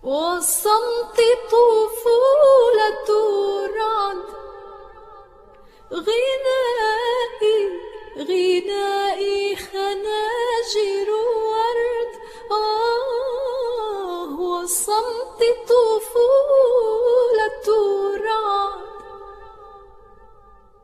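A woman's voice singing wordless, melismatic phrases with vibrato in an Arabic song: three long phrases, each trailing off, the last fading out near the end.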